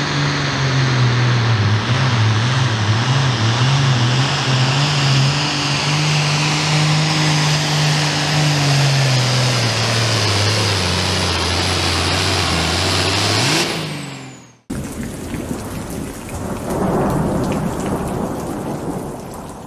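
Hot Farm class Ford pulling tractor's 466-cubic-inch turbocharged diesel running at full power under sled load, its note wavering and then dropping lower as the engine lugs down, with a brief rise before the sound cuts off suddenly about 14 seconds in. A loud rumbling noise follows, swelling near the end.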